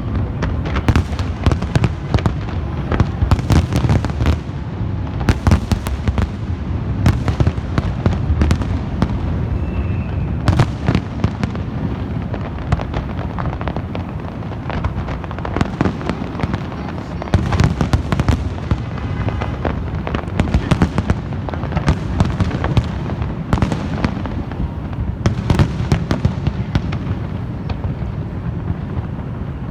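Many fireworks exploding at once: a dense, unbroken barrage of sharp bangs and crackles over a continuous low rumble.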